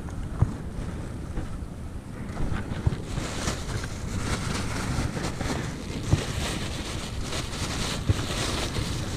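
Wind buffeting the microphone over small waves lapping against shoreline rocks, with a few sharp handling knocks. From about three seconds in, a crackly rustling joins in.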